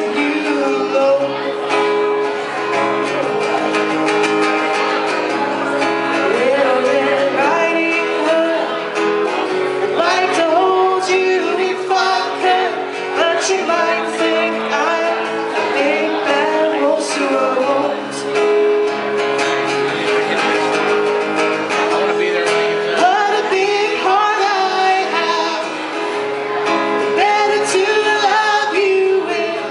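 A live song: a strummed acoustic guitar with a man and a woman singing together.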